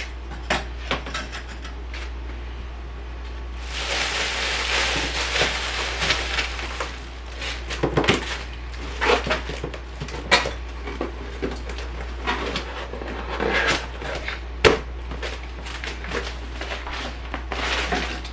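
Dishes and utensils clattering and knocking in a kitchen, with a stretch of steady hiss a few seconds in.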